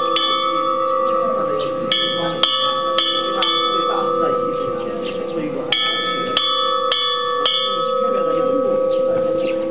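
Metal bells struck again and again in quick runs of three or four strikes, each one ringing on, over a steady ringing tone and a murmur of voices.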